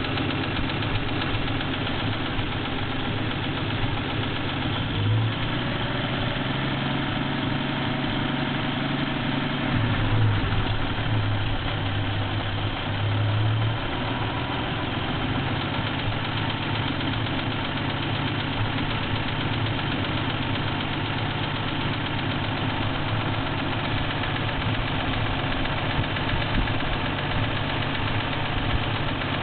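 Toyota 2F inline-six petrol engine idling with a knock. The engine note swells briefly about ten seconds in.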